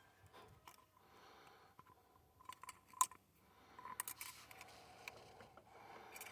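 Faint clicks and scraping from a rubber radiator hose and its clamp being worked onto a fitting by hand, with one sharp click about three seconds in.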